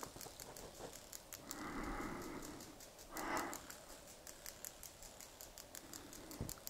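Bull moose grunting: a breathy grunt about a second and a half in lasting about a second, a shorter one about three seconds in, and another starting at the very end. Faint irregular ticking sits high above them.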